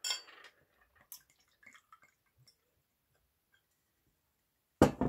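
A drink poured from a glass bottle into a wine glass: a short splash at the start, then faint trickles and drips. Near the end, one sharp knock.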